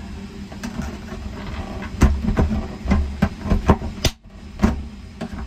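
Sharp knocks and rattles inside an airliner lavatory, about half a dozen over a few seconds starting about two seconds in, over the aircraft's steady low rumble.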